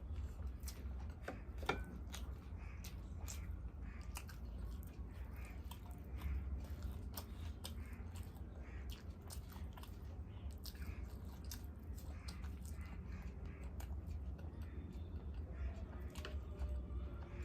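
Close-up eating sounds: chewing with frequent short wet mouth clicks, over a steady low hum.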